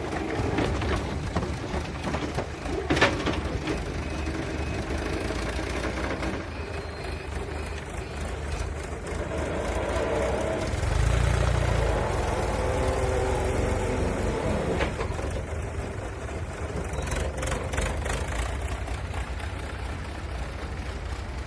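Heavy construction machine engine running steadily, with a sharp clank about three seconds in and a louder low rumble around eleven seconds in as the engine works harder.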